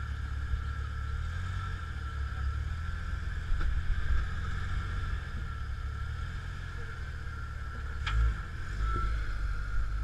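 Jeep Cherokee XJ's engine running at low revs as it crawls over boulders, a steady low rumble with a thin steady whine above it. A single sharp click about eight seconds in.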